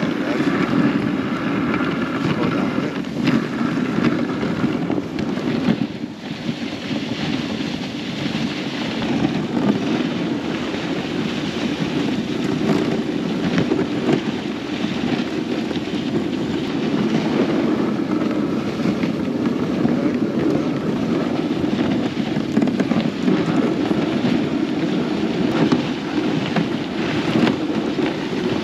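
A dog sled gliding over packed snow at speed: steady hiss and scrape of the runners, with wind buffeting the microphone.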